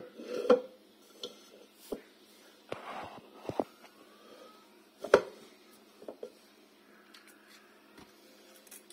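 Scattered light knocks, taps and a short scrape of kitchen utensils and containers being handled, the sharpest knock about five seconds in.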